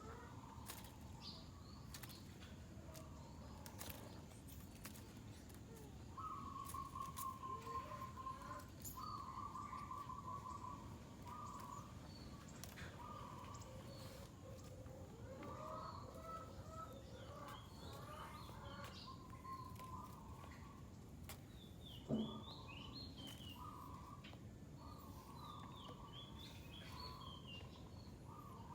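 Faint animal calls: a series of drawn-out, mid-pitched cries, each one to two seconds long, with short high chirps joining in the second half. A single sharp knock about 22 seconds in.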